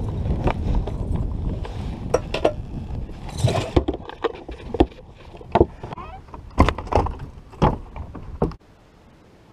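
Wind buffeting the microphone, then a series of sharp knocks and clunks from handling the bass boat's livewell hatch and deck. The sound cuts off suddenly near the end.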